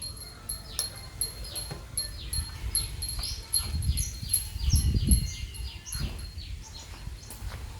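A utensil beating dalgona coffee mixture (instant coffee, sugar and water) in a bowl or cup by hand, making rhythmic clicking strokes about four a second. Low handling thumps swell about two-thirds of the way through.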